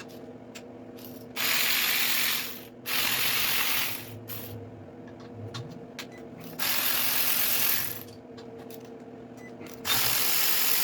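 Air ratchet running in four bursts of about a second each, over a steady low hum.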